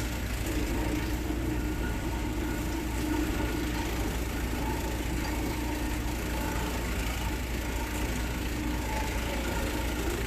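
Electric green-onion slicing machine running, a steady motor hum with faint steady tones above it.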